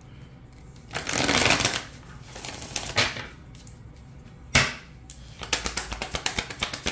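A deck of tarot cards being handled and shuffled: a short brushing rustle about a second in, a couple of single card slaps, then a fast run of card flicks from about five seconds in.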